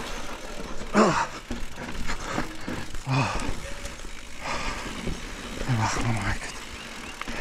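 Mountain bike riding down a rough, rocky trail, giving a steady noisy rumble. The rider's short grunts or hard breaths come about 1, 3 and 6 seconds in.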